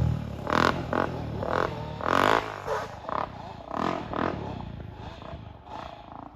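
Quad (ATV) engine revving in repeated short surges, fading as the machine moves away.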